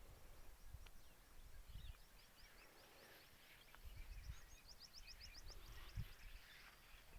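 Faint birdsong: a string of short high chirps, then a quick trill of about eight notes around the middle, over a low rumble.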